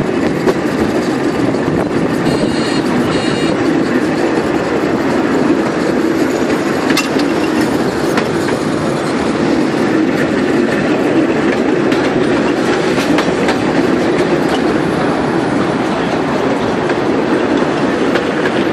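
Vintage electric tram running along its track, heard from aboard an open-sided wooden car: a steady rumble of steel wheels on the rails with occasional clicks of rail joints.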